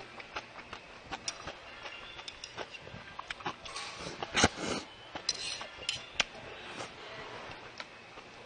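A person slurping udon broth from a small bowl, a loud slurp about four seconds in. Around it are scattered short clicks of eating sounds.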